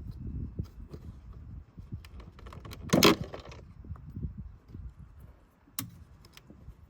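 Metallic knocking and rattling, one loud rattling clunk about three seconds in and a sharp click near the end, over a low rumble; the rattle is the kind of knock that can come from inside an Audi Q7's rear door.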